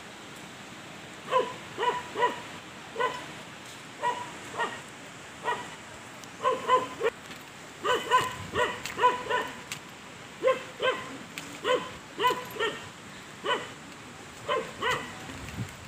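A dog barking repeatedly, in short runs of two to five barks with pauses of about a second between runs.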